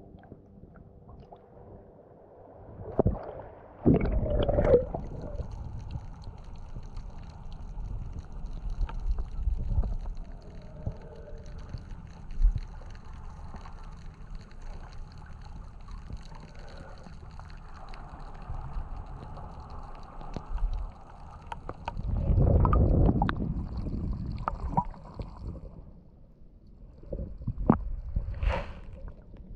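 Muffled underwater sound picked up by a submerged action camera: low sloshing and gurgling water, with louder surges about four seconds in and again past the twenty-second mark, and a few short knocks near the end.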